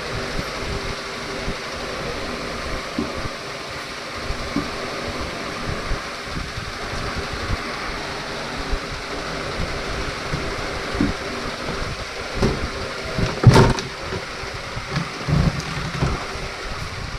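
Washing machine running: a steady rushing, water-like noise with irregular knocks and thumps, and one loud thump a little past halfway.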